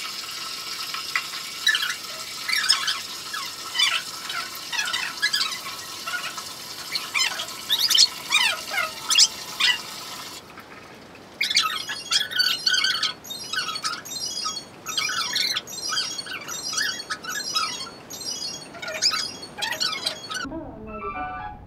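A Pomeranian puppy whimpering and squealing in short, high, rising and falling cries while being shampooed, over water running from a tap. About ten seconds in the water stops, and the cries then come as quick short yelps, about two a second.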